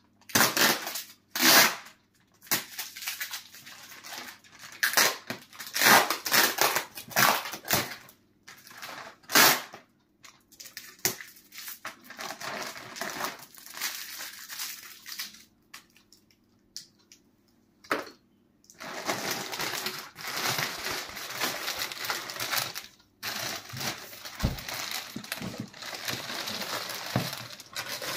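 A clear plastic cover rustling and crinkling as it is pulled and handled over a cardboard carton, in irregular bursts with short pauses.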